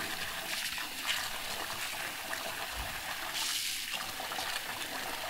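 Tap water running into a stainless steel bowl of couscous semolina while a hand stirs and rubs the wet grains, washing the semolina.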